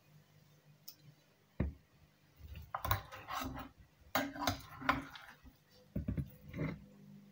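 Handling of a lasagne baking dish: a single sharp knock, then three short bursts of scraping and clattering.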